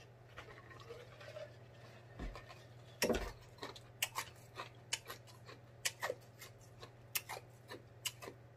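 Close-miked lip smacks and wet mouth clicks from tasting a drink just sipped, irregular and a few a second, starting about three seconds in, over a faint steady hum.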